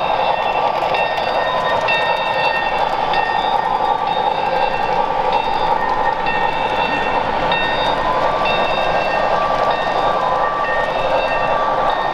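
HO scale model steam locomotive running on a layout, heard over a steady hall din, with a high ringing tone that comes and goes.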